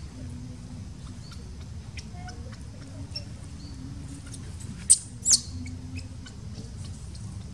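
Newborn long-tailed macaque giving two short, shrill squeaks about five seconds in, the second falling in pitch. Underneath are faint scattered chirps and a low outdoor rumble.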